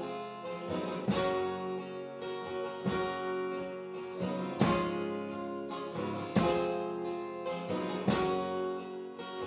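Acoustic guitar strumming chords in an instrumental break of a folk-pop song, a hard strum every second and a half to two seconds with the chords ringing on between.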